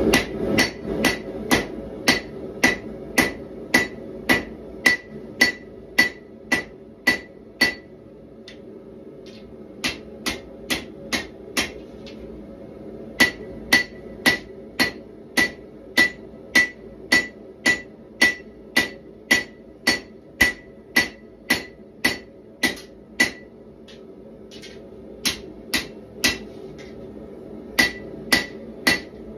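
Hand hammer striking red-hot 1095 steel on an anvil while forging a knife blade: steady blows about two a second, each with a bright metallic ring, in runs broken by a few short pauses.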